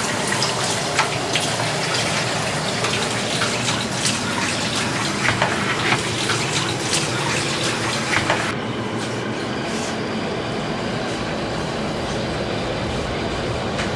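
Kitchen tap running into a stainless-steel sink while dishes are washed, a steady rush of water with scattered clinks and knocks of crockery. About eight and a half seconds in, the sound turns duller and steadier, with the clinks dropping away.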